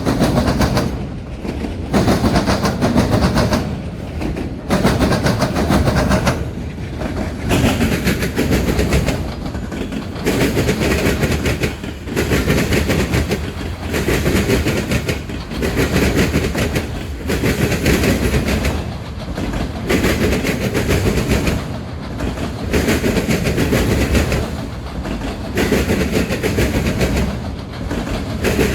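Freight train cars rolling past, their wheels clattering over the rail joints. The sound swells and dips every two to three seconds as each car goes by.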